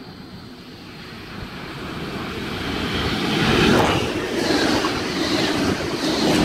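V set double-deck intercity electric train running through the station at speed without stopping: the rumble and rush of its wheels on the rails builds from about a second in, peaks around four seconds in, and stays loud as the carriages pass close by.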